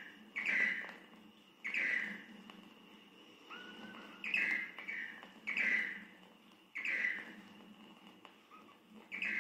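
Tangará-rei, a manakin, calling: short, sharp notes with a slight downward slide, repeated about every second or so, with one longer held note partway through.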